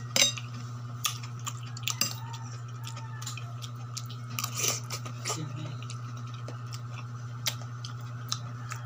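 A person eating: a metal spoon clinking and scraping against a plate, with chewing, heard as scattered short clicks over a steady low hum.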